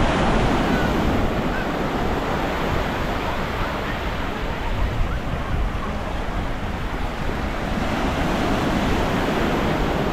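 Waves washing steadily onto a beach, with wind buffeting the microphone as a low rumble.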